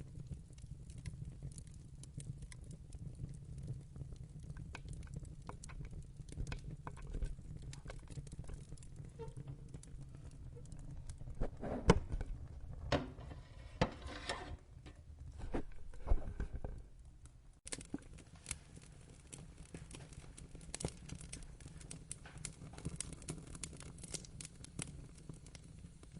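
Wood fire crackling, with a steady low rumble under scattered sharp clicks. A run of louder pops and snaps comes about halfway through.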